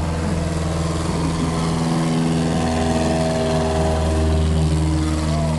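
Single-engine floatplane's propeller engine at take-off power on its water run, getting louder until it passes about four seconds in, over a steady low engine hum.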